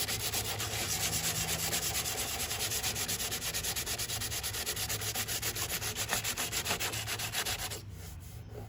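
Sandpaper rubbed by hand over hardened body filler on a car panel, in quick, even back-and-forth strokes that stop abruptly near the end.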